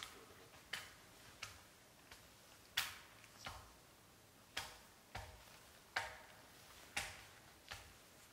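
Axe or hatchet chopping wood some way off: about ten sharp, single strikes at an uneven pace of roughly one a second, each fading quickly.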